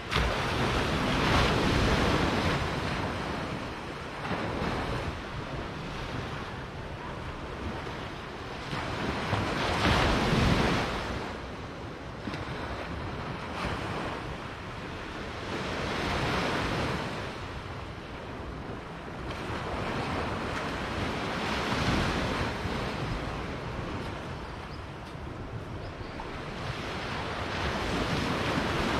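Small surf waves breaking and washing up on a sandy beach. The surf noise swells and fades about five times, one breaking wave every six to eight seconds, with wind noise on the microphone underneath.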